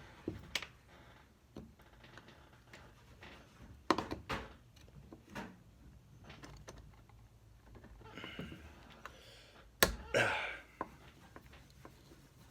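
Scattered knocks and light clatter of hand tools and carburetor parts being handled on a workbench, with one sharp knock about ten seconds in followed by a brief scrape.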